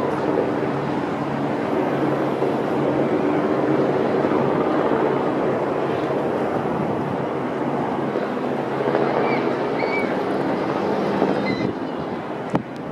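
Steady engine drone with a rushing noise, with a few faint high chirps and a dip in loudness near the end.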